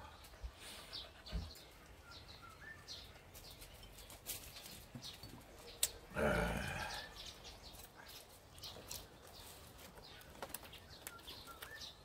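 Quiet outdoor background with a few faint, short bird chirps, and one louder pitched sound lasting about a second, about six seconds in.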